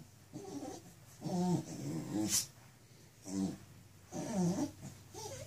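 A dog making loud, contented vocal sounds, about six short pitched grunts and groans, while rolling on its back and rubbing it on a carpet. A brief scuffing noise comes about two seconds in.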